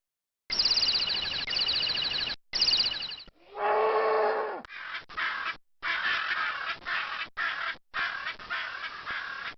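A long, rapid, high bird trill. About three and a half seconds in comes a short bellow from a longhorn steer, then harsh, raspy squawks from a macaw parrot, repeated with short gaps.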